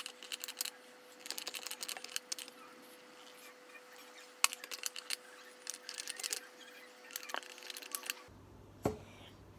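Plastic hand-soap pump bottle pressed again and again, clicking in quick runs as it squirts soap into a bowl.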